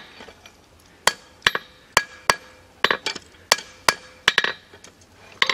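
Blacksmith's hammer striking a hot iron chest hinge on the anvil to straighten it: about eleven blows at roughly two a second, starting about a second in, each with a short metallic ring from the anvil.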